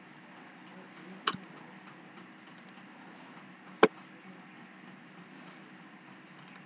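Two sharp computer mouse clicks about two and a half seconds apart, over a faint steady background hum.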